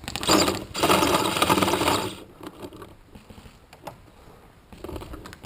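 Paintball marker firing a rapid string of shots in two quick bursts, about two seconds in all, then stopping.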